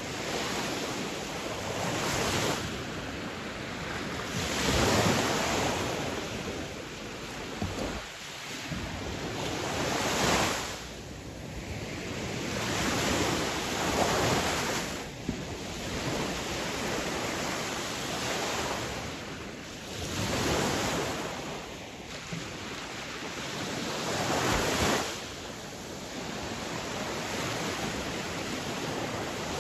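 Sea waves breaking in a steady rush of surf, each wave swelling up and falling back about every four to five seconds.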